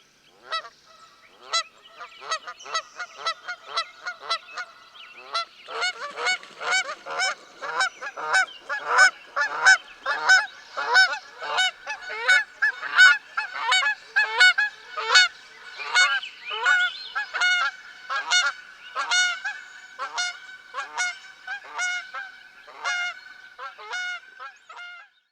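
A flock of geese honking: a few scattered honks at first, then from about five seconds in many short honks overlapping in quick succession.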